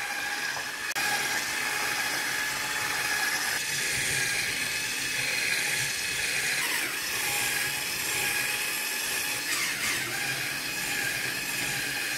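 Electric hand mixer with wire whisk beaters running steadily, beating a cream in a glass bowl, with a constant motor whine.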